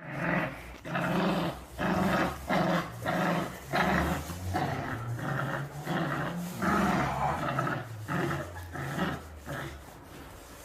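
Dog growling in a run of short, repeated grumbles, about two a second.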